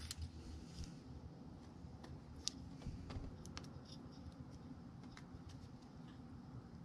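Faint, scattered clicks and small scrapes of fingers and a metal tool working at a wiring pigtail and its plastic connector, over a low steady hum.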